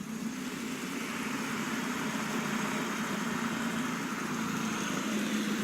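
Several fidget spinners spinning together, a steady whirring hum from their bearings as they wind down.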